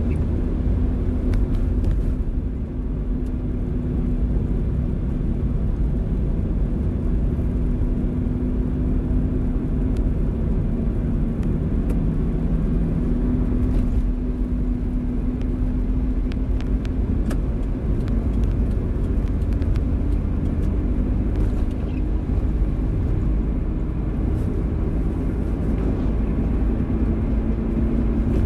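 Car driving in the rain: a steady low rumble of engine and tyres with a faint constant hum, and a few scattered light ticks of rain.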